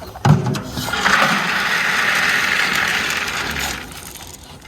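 A bucket being tipped out: a knock, then a steady rushing pour lasting about three seconds that fades away.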